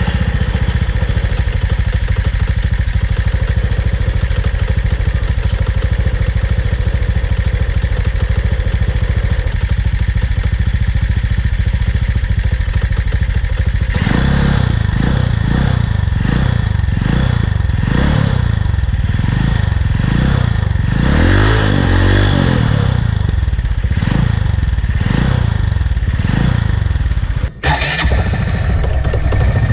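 Motorcycle engine running through a newly fitted Exos R6 aftermarket exhaust: a steady idle for the first half, then revved in repeated throttle blips about once a second, with a brief break near the end.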